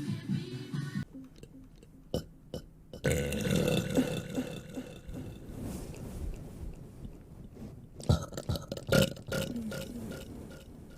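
A woman burping: a loud, long, low burp starting about three seconds in, with further short sounds about eight seconds in.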